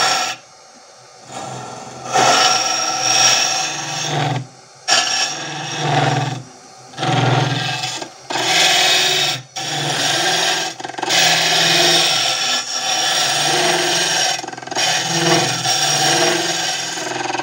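Wood lathe spinning an end-grain blank while a hollowing tool with a limiter cuts into it: a loud rasping, scraping cut in a series of passes broken by brief pauses as the tool is drawn back.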